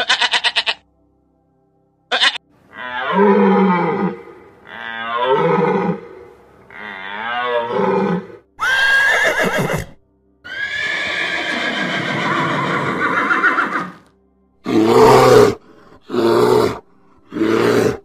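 A goat bleating briefly at the start, then a horse whinnying: three wavering, falling calls followed by two longer, harsher ones. Three short, lower animal calls follow near the end.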